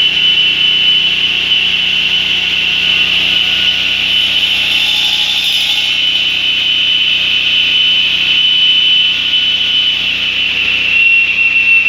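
CNC marble cutting machine running, its saw giving a loud, steady high-pitched whine that drops slightly in pitch near the end.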